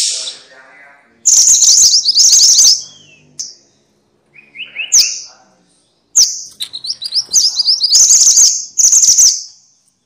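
Minivet calling: several loud bursts of rapid, high-pitched chattering notes, with a short lower trill about four and a half seconds in.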